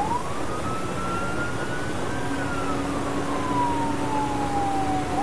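Police car siren in wail mode, one slow cycle: the pitch rises for about two seconds, falls slowly, and starts climbing again at the very end. Steady road and engine noise of the pursuing cruiser lies under it, with a faint low steady tone joining about halfway through.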